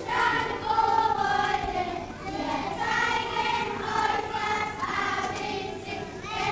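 A group of children singing together as a choir, with held notes running through.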